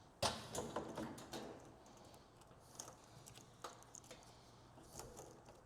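Light clicks and taps of hands handling a washing machine's water inlet valve and its wiring: a quick cluster of clicks about a quarter second in, then single clicks every second or so.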